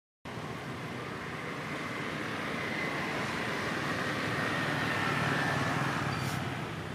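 A motor vehicle passing on the road, its noise swelling to a peak about five seconds in and then fading.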